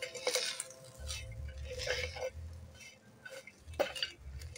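Metal tumbler pounding and grinding roasted green chillies, garlic and peanuts against an iron tawa: a few scattered metal-on-metal knocks with muffled crushing and scraping between them as the thecha is mashed.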